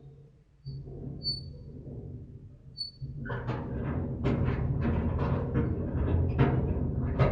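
Old rusty railway turntable groaning as its metal shifts: a deep metallic drone with a few short high squeaks, then from about three seconds in a much louder, juddering groan that keeps building.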